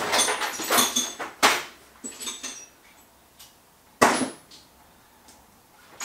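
Metal hand tools clattering and clanking as they are picked out, with a sharp metallic knock about a second and a half in and another about four seconds in.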